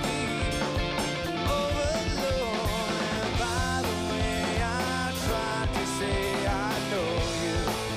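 Live rock band playing, a man singing the lead melody into the microphone over electric guitar and a steady drum beat.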